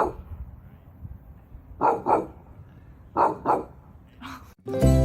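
A dog barking in short, separate barks: one, then two quick pairs about a second and a half apart, then a fainter one. Plucked-string music starts near the end.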